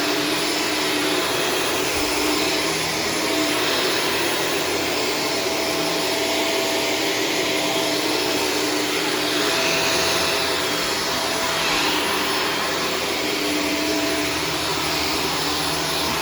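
Shark Stratos corded upright vacuum cleaner running steadily, a continuous motor and airflow noise with a steady whine, swelling and easing slightly in level as it works over the floor.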